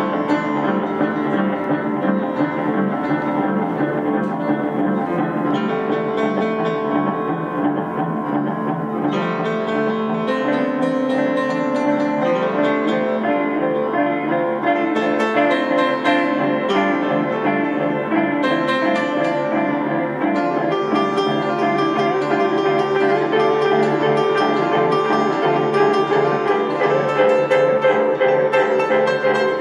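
Live instrumental duet of an upright piano and a guitar, playing sustained, overlapping notes at a steady level.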